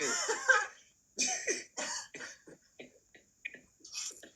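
A person coughing repeatedly, a string of short bursts that get weaker and further apart, following the tail of a spoken line.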